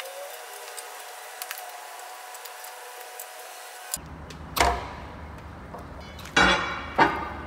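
Metal clanks and knocks of tools and parts being handled in a stripped-down milling machine bed. They start suddenly about four seconds in, with three loud sharp knocks near the end. Before that there is only a faint, thin background with a few quiet tones.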